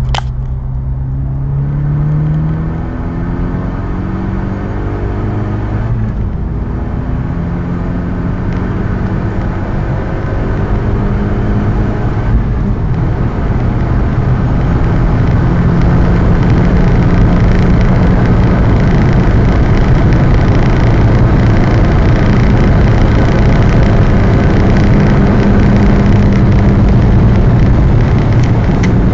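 Renault Mégane R26's turbocharged four-cylinder engine pulling hard at high speed, heard from inside the cabin: the engine note rises over the first few seconds, then wind and road noise build and grow louder as the car nears top speed, levelling off in the second half.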